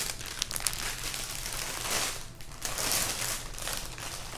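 Soft, irregular rustling and crinkling of paper and plastic as a diamond-painting canvas and its bags of drills are handled, a little louder about two and three seconds in.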